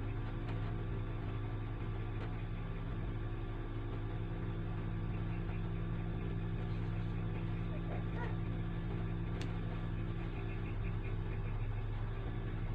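A machine's steady low hum, even throughout, with a faint click about nine seconds in.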